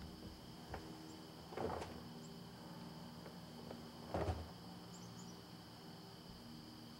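A steady drone of insects, with two short, louder knocks and scuffs about a second and a half and four seconds in as black bears push the plastic bait barrel around on the ground.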